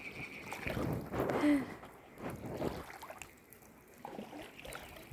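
Spring water trickling and splashing in a shallow channel, in uneven surges that ease off after the first couple of seconds. A high, steady pulsing tone stops under a second in.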